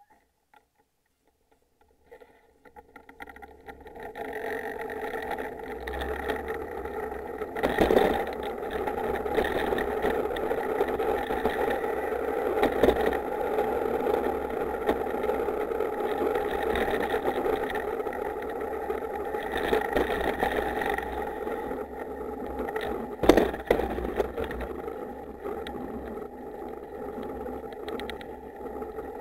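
Engineless soapbox car rolling down an asphalt course: the wheels' rolling rumble and the body's rattle build up as it gathers speed, with two sharp jolts, about a quarter of the way in and again past the three-quarter mark.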